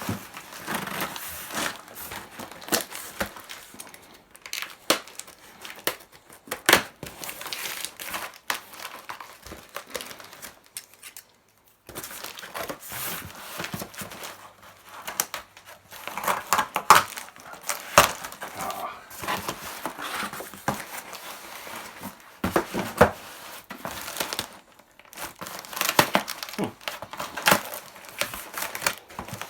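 A posted parcel being opened by hand: packing tape and cardboard tearing, with wrapping crinkling and rustling in irregular crackles and sharp clicks. The sound cuts out briefly about eleven seconds in.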